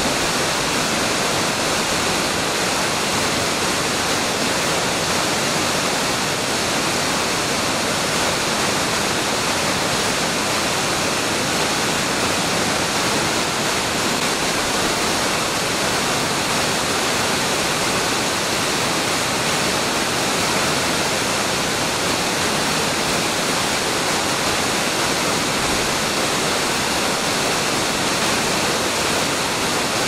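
Double waterfall, two falls plunging into a rocky pool with water rushing over boulders below: a steady, unbroken rush of falling water.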